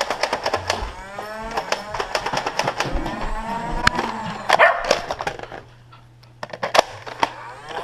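Drawn-out, wavering vocal noises from a person, not words, mixed with many sharp clicks and knocks, with a brief lull about three-quarters of the way through.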